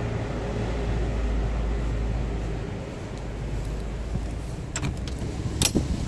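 Car running, a steady low rumble of engine and road noise that eases off about two and a half seconds in, with a few sharp clicks near the end.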